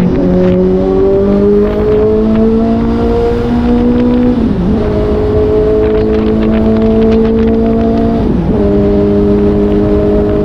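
Suzuki GSR750's inline-four engine pulling under way, its note climbing slowly, then dipping sharply and recovering twice, about four and eight seconds in.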